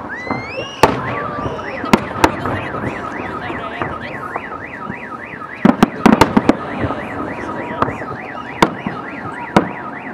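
Fireworks shells bursting with sharp bangs, a quick cluster of them about six seconds in. Over them a car alarm sounds: a rising tone near the start, then a fast up-and-down warble, about two and a half sweeps a second, that stops around six and a half seconds in.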